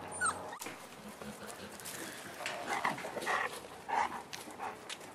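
Five-week-old Boerboel puppies whimpering and yipping as they play. A short rising whine comes right at the start, then a run of short whimpers and yips follows in the middle.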